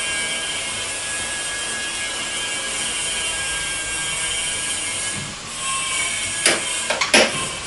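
A steady hiss with faint held tones, then three or four sharp knocks and clatters close together near the end as hand tools and a cordless drill are handled.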